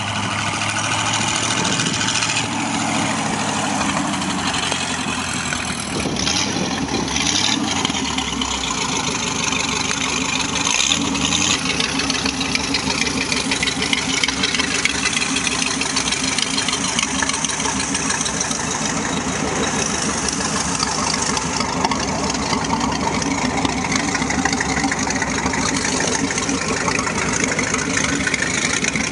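Ford flathead V8 engine of a custom trike running, then settling into a steady idle for most of the stretch.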